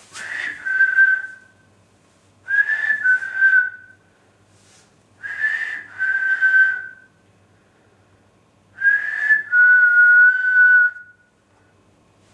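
A person whistling to call a dog: four two-note whistles a few seconds apart, each a short higher note dropping to a longer held lower one, with audible breath. The last whistle is held longest.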